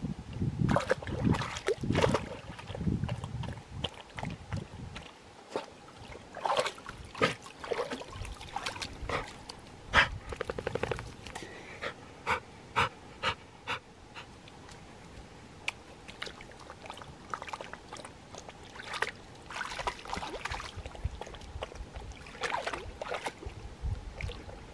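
Dog wading in shallow lake water at the shore, with sloshing and splashing. A run of short sharp splashes comes in the middle.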